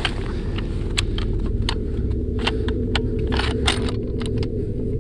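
Irregular crunching steps and clinking of carried gear on rocky mountain ground, over a steady low rumble.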